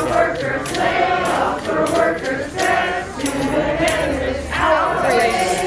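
A large group of Christmas carolers singing a carol together, many voices at once.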